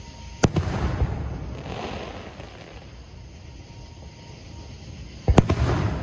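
Aerial fireworks shells bursting: two sharp bangs about five seconds apart, each trailing off in a rumble over a second or so.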